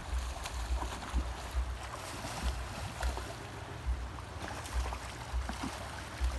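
Steady wind and water noise aboard a fishing boat at sea, with uneven low thumps of wind buffeting the microphone.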